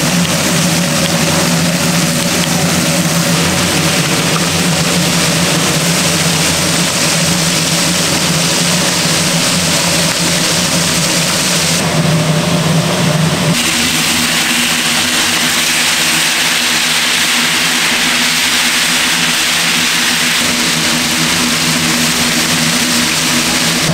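A steady, loud machine hum with a broad hiss over it. Its tone shifts abruptly about halfway through.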